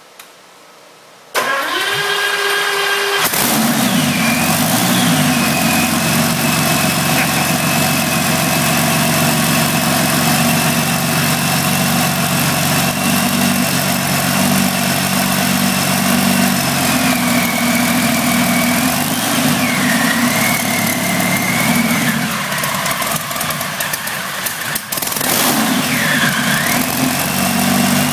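1942 Ranger V12 aircraft engine, air-cooled, cranked by its starter for about two seconds, then catching and running through short open exhaust stacks. It settles into a steady idle, with some changes in engine speed in the second half.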